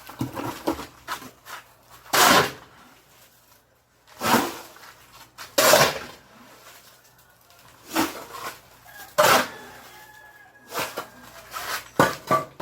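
Shovel scraping and scooping through a batch of concrete mix by hand: a rough stroke every one to two seconds, about seven in all.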